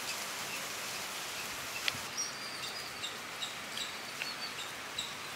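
Small birds chirping faintly, about three short high chirps a second, starting about two seconds in over a steady background hiss, with a single click just before the chirps begin.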